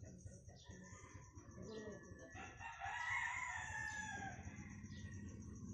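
A rooster crowing once, about two and a half seconds in: a single drawn-out crow that rises and then falls away.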